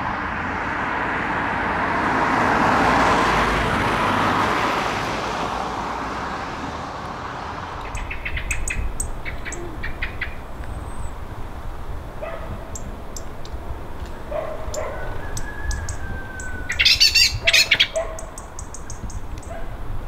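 A jet airliner passing high overhead: a rushing roar that swells and then fades over the first several seconds. Small birds then chirp and twitter, with a sliding whistled note and a louder burst of song near the end.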